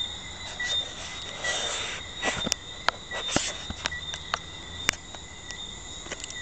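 Night chorus of Jamaican tree frogs: a steady high trill with small chirps pulsing through it, and several sharp clicks scattered across it.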